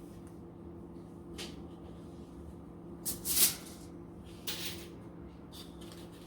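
Kitchen handling noises: four short swishing sounds, the loudest about halfway through, over a steady low hum.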